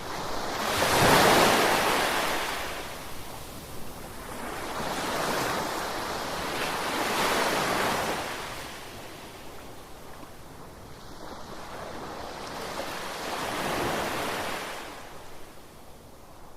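Ocean waves breaking and washing up the shore in slow swells. The largest comes about a second in, another builds over the middle, and a smaller one follows near the end.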